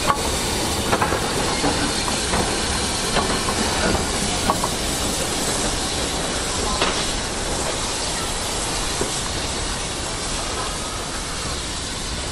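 Steady hiss of escaping steam from a JNR Class 8620 steam locomotive, No. 8630, with a few light metallic clicks in the first half.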